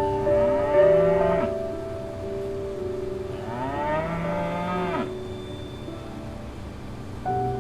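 Cow mooing twice: a short moo about a second in, then a longer moo that rises and falls in pitch.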